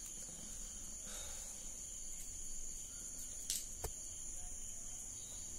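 Crickets trilling steadily at a high pitch, with two light clicks about three and a half seconds in as the beads and thread are handled.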